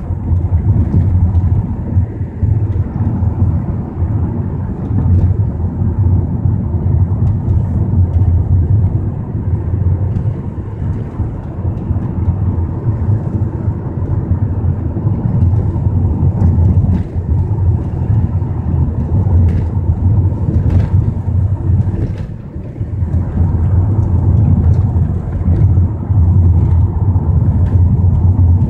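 A car driving along a road, heard from inside the cabin: a steady low rumble that eases briefly about two-thirds of the way through.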